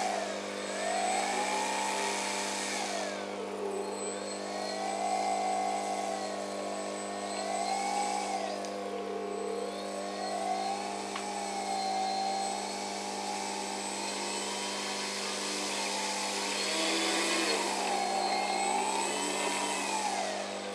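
Electric motor and propeller of a Multiplex Mentor RC model plane taxiing, its whine rising and falling in pitch again and again as the throttle is opened and eased off.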